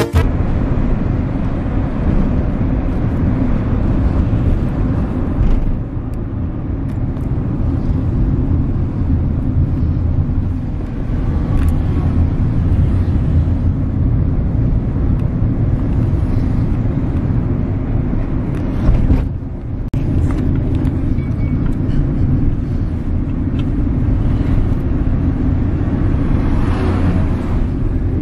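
Road noise inside a moving car's cabin: a steady low rumble, broken by a brief drop about two-thirds of the way through.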